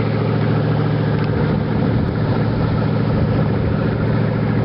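Motorboat engine running steadily at speed, with a steady hum under a hiss of rushing water and wind.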